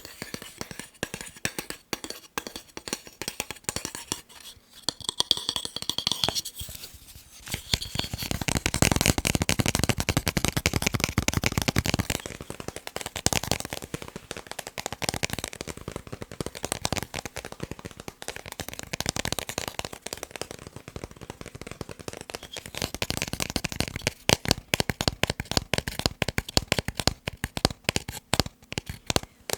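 Fast tapping with the fingers on picture frames: a dense, rapid run of small taps and clicks that grows busier and louder from about a third of the way in, then eases off.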